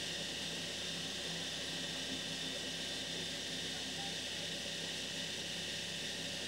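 Steady electrical hum and whir with a hiss from a Rhaetian Railway Ge 6/6 I 'Crocodile' electric locomotive standing still, its equipment running, with no wheel or rail noise.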